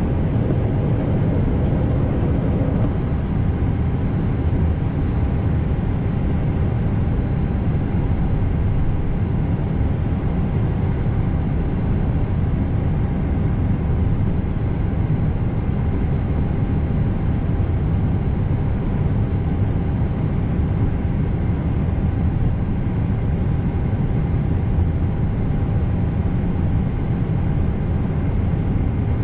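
Steady low rumble of an Airbus airliner taxiing onto the runway, heard inside the cockpit, with a faint steady whine throughout.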